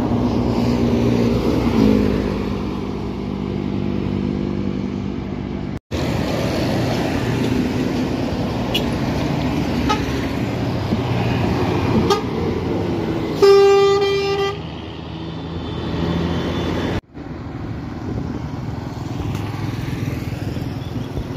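Roadside traffic on a highway: an intercity coach passes close, its engine note dropping in pitch as it goes by about two seconds in, followed by steady engine and tyre noise from further coaches and motorcycles. A single vehicle horn toot of about a second sounds around two-thirds of the way through.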